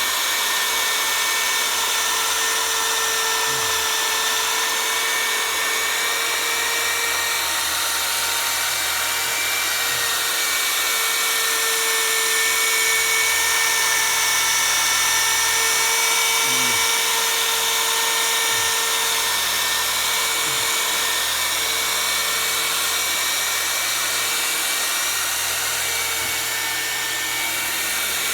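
Power tool spinning a polishing pad against a plastic headlight lens, its motor giving a steady whine, held at a speed setting below high under medium pressure while the abrasive headlight-restorer compound is worked in.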